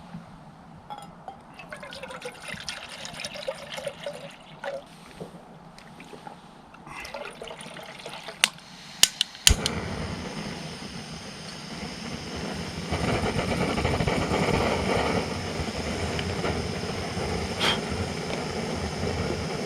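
Jetboil camp stove being lit: gear rustles, then a few quick igniter clicks about nine seconds in, and the burner catches with a steady hiss that gets louder a few seconds later.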